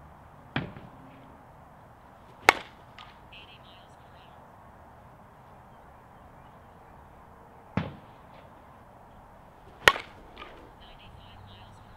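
A 2024 Axe Scorch two-piece slowpitch softball bat hitting softballs: four sharp cracks in two pairs, the second of each pair the louder.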